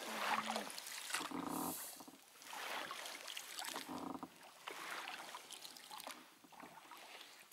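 Inflatable boat being rowed slowly: faint, irregular splashes and swishes of water from the oar strokes.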